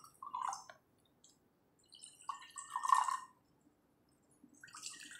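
Sugar cane drink glugging from an opened aluminium can into drinking glasses, in three separate pours, one near the start, one in the middle and one near the end.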